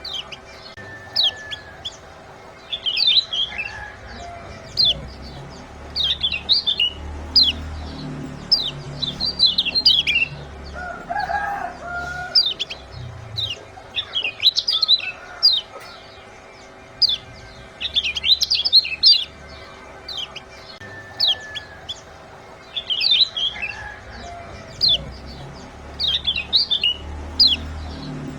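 Kecial kuning (lemon-bellied white-eye) giving sharp, high 'ciak' chirps, each a quick falling note, fired in fast clusters of two to five every second or two as a repeating call sequence.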